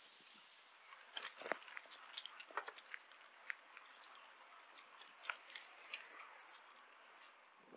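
Bicycle rolling along a path: scattered, irregular crunching clicks from the tyres and bike over a faint steady hiss.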